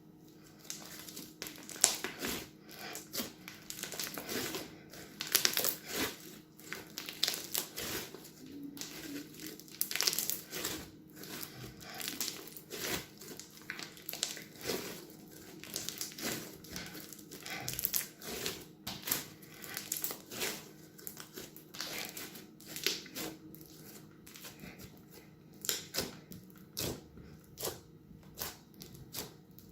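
Crunchy slime being squeezed and handled in a plastic piping bag: a dense, irregular run of crackles, pops and crinkles that keeps going throughout.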